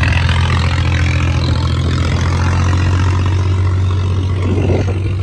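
Passenger boat's engine running steadily, a deep, even hum.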